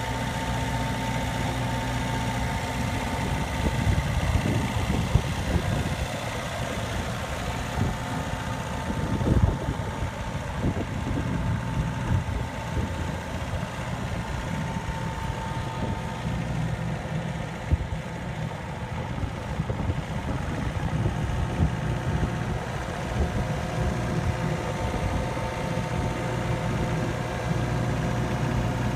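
Jacobsen AR250 ride-on rotary mower's engine idling steadily, a constant low hum, with a couple of brief low rumbles about four and nine seconds in.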